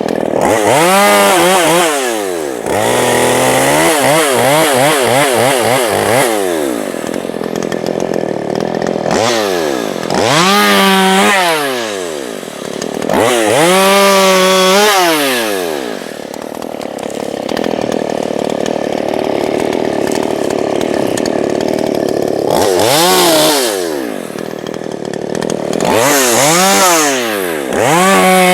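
Small two-stroke gas chainsaw running and being throttled up and down several times. The engine pitch climbs and falls away in repeated surges, with stretches of steadier running between them.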